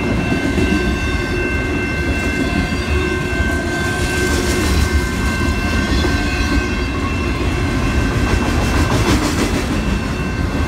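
Freight train of autorack cars rolling past close by: a steady rumble of steel wheels on rail, with bursts of clicking as the wheels cross rail joints about four and nine seconds in. A steady high-pitched ringing tone sits over it throughout.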